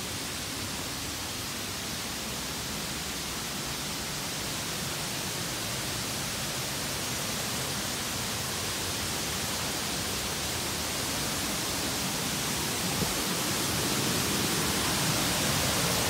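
Waterfall cascades tumbling over boulders, a steady rushing that grows louder toward the end as the falls come closer. The water is running full, overflowing the rocks.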